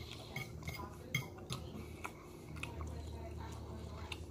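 Metal knife and fork clinking and scraping against a ceramic plate while cutting roast chicken: a scatter of small, irregular clicks.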